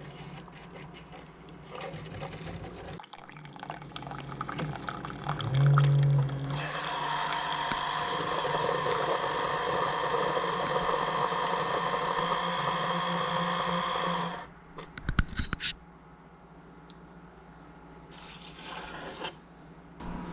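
Water running steadily for about eight seconds, then cut off suddenly, with a short low hum just before it starts and a few clicks after it stops.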